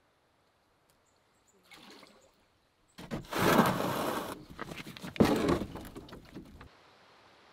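A canoe hull scraping and grinding over rocks as it is run ashore. It starts suddenly about three seconds in, comes on loud again about five seconds in, and cuts off abruptly.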